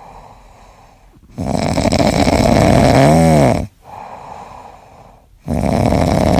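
An animal snoring loudly: two long snores about four seconds apart, with quieter breathing between them.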